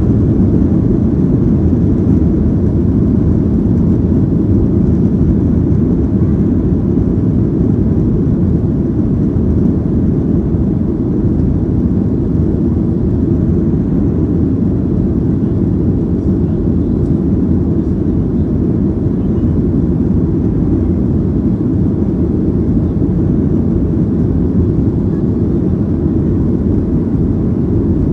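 Steady low rumble inside the cabin of a Boeing 737-800 taxiing on the ground, from its CFM56-7B engines and the rolling aircraft.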